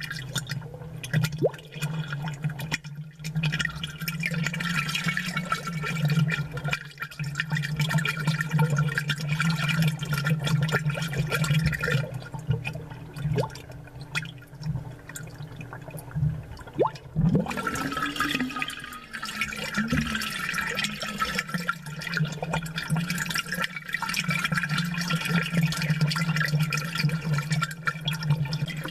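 Aquarium water bubbling, recorded close and amplified, over a steady low hum. The bubbling thins out for a few seconds in the middle and then comes back.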